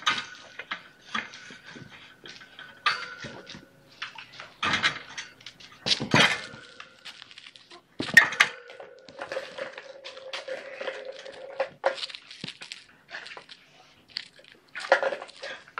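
Kittens playing on a hard floor: irregular scratches, knocks and clatters of paws and plastic toys, with a faint steady hum underneath.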